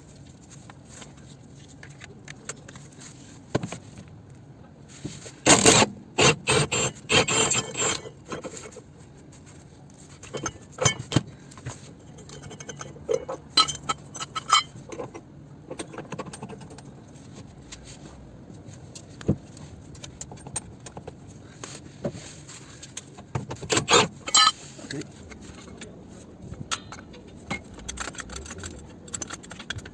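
Steel hand tools clinking and scraping on metal: a socket wrench working on rusty subframe bolts under a car. There is a burst of rapid clinks about six seconds in, scattered clinks after that, and another burst later on.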